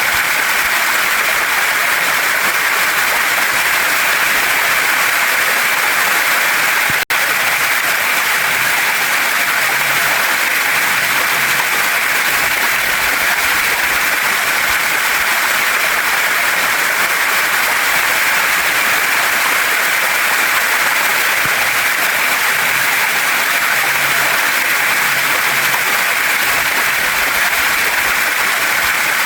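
Waterfall and mountain stream rushing over rocks in a steady, dense hiss, with a split-second dropout in the sound about seven seconds in.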